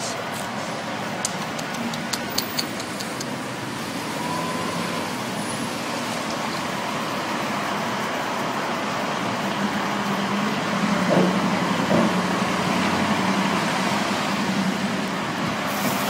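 Street traffic noise: a steady hum of road traffic, with a vehicle engine running low and steady through the second half. A few sharp clicks about two seconds in.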